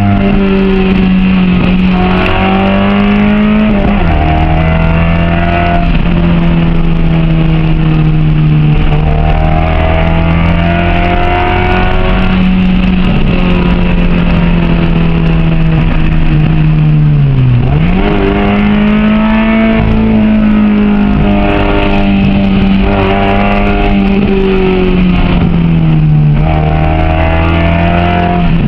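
Honda H22A four-cylinder engine in a 1998 Civic coupe, running hard under load at high, fairly steady revs. The pitch drops and climbs again a few times, most sharply about two-thirds of the way through.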